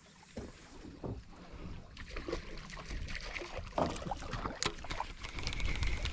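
Small fishing boat on the water: a low rumble with water sloshing against the hull, and scattered knocks and clicks of fishing gear on board. The sharpest click comes about four and a half seconds in.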